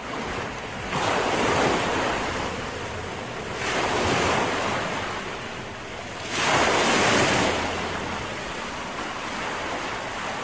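Sea waves washing onto a shore: a steady hiss of surf that swells three times, about every two and a half to three seconds.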